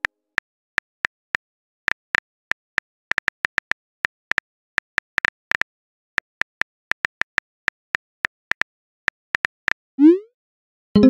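Phone keyboard key-tap click sound effects in an irregular run of short sharp clicks, about four a second, as a message is typed; at about ten seconds in a short rising swoosh plays as the message is sent.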